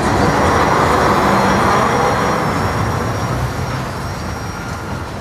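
Empty double-stack well cars of an intermodal freight train rolling past, a steady rumble and rattle that fades as the end of the train goes by, from about three seconds in.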